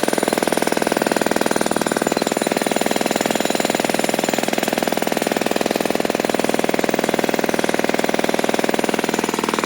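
Jackhammer hammering continuously at a very fast, even rate, loud and unbroken.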